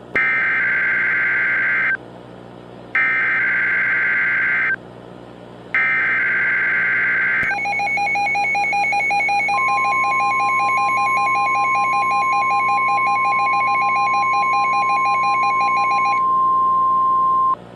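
Emergency Alert System tones: three bursts of about two seconds of SAME digital header, warbling and screeching, with short gaps between them. Then a harsh, pulsing two-tone attention signal sounds, and a steady single-pitch weather radio alert tone joins it about two seconds later. The attention signal stops first, and the steady tone runs on alone for about a second more.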